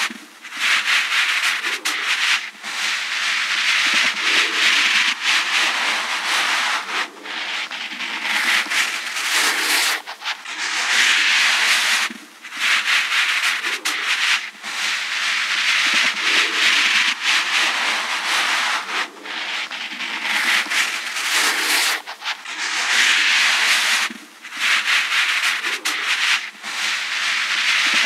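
Skin being rubbed: a dry rubbing hiss in long strokes, broken by brief pauses every few seconds.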